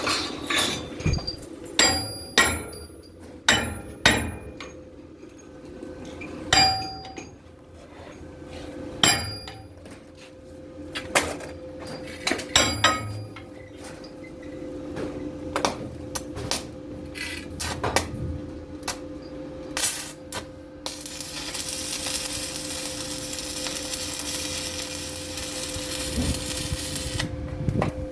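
Hammer blows ringing on a steel pipe as it is knocked into alignment, a dozen or so sharp strikes in the first half, over a steady hum. Near the end comes about six seconds of steady arc-welding sizzle as a tack weld is laid.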